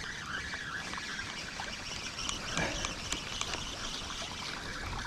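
A hooked perch splashing and thrashing at the water's surface as it is reeled in on a spinning rod, with water trickling and a scatter of short splashy clicks.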